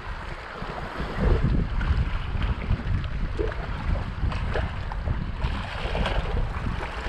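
Wind buffeting the microphone, rising and falling unevenly, over small waves washing against the rocky shore.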